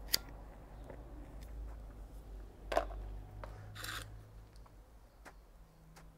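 Faint handling noises at a workbench: a sharp click just after the start, a brief scrape about three seconds in and a short hiss about a second later, with a few lighter clicks over a low steady hum.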